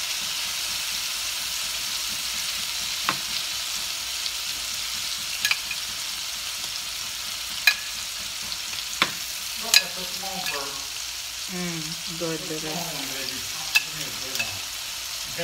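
Chicken pieces frying in butter in a frying pan: a steady sizzle, broken several times by sharp clicks of metal tongs as raw pieces are added.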